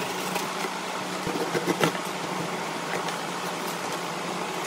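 Steady fan-like whir with a low hum, with a few light taps and rubs of a cardboard shoe box being handled, the loudest just before two seconds in.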